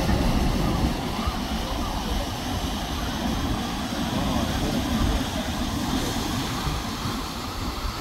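Steady outdoor background rumble with a hiss, loudest in the deep lows, with no distinct bird calls standing out.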